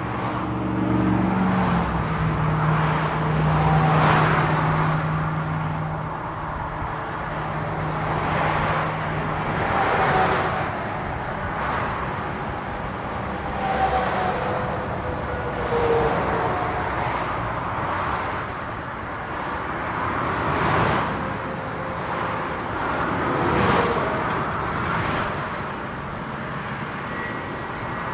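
Highway traffic: cars passing one after another, their tyre noise swelling and fading every few seconds over a continuous roar. A low steady engine drone runs under it for about the first ten seconds, then fades.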